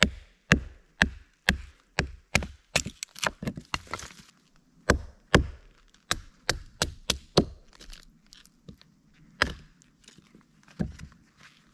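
Batoning with a Hultafors OK4 Scandi-ground knife: a baton knocking on the knife's spine to drive the blade through a log of green wood. Sharp knocks come two to three a second for about seven seconds, then only two more single blows spaced out near the end.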